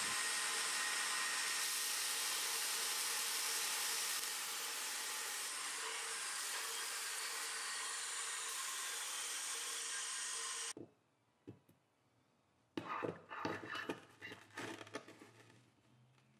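Belt grinder abrading the forge scale off a flattened piece of damascus steel billet: a steady grinding hiss that drops a little about four seconds in, then stops abruptly. Near the end come a few light clicks and knocks as the steel pieces are handled.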